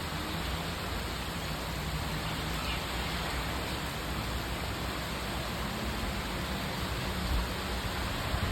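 Rain falling steadily: an even hiss with a low rumble underneath.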